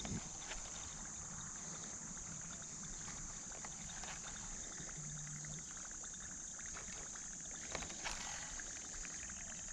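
Steady high-pitched drone of insects in summer heat, with a few light knocks and clicks, the loudest about eight seconds in.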